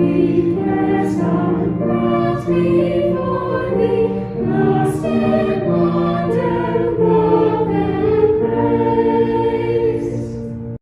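Choir singing slow, sustained chords, which cut off suddenly at the very end.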